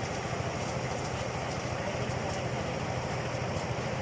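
Engine of a rice thresher machine running steadily, a continuous fast-pulsing drone.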